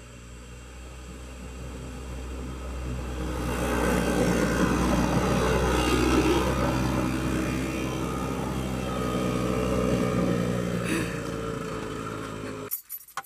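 Golf cart driving past, its motor growing louder as it approaches, loudest as it passes about six seconds in, then fading as it drives away. The sound cuts off suddenly near the end.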